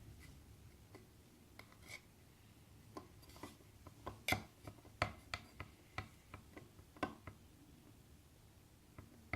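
Small mixing tool tapping and scraping against a container while stirring lip balm into glue: faint scattered sharp clicks, most of them from about three seconds in.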